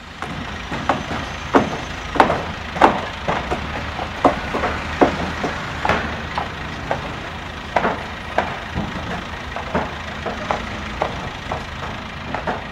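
Irregular knocking and clattering, one to three sharp knocks a second of varying strength, over a steady low rumble: building-work noise.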